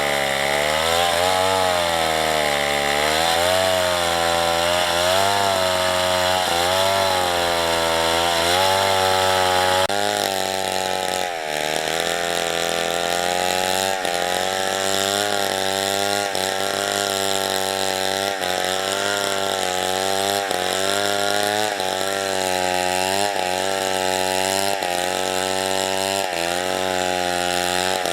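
Petrol chainsaw running hard while cutting wood, its engine pitch rising and falling over and over as the chain loads and frees in the cut. The sound changes abruptly about a third of the way through, and the pitch swings come quicker after that.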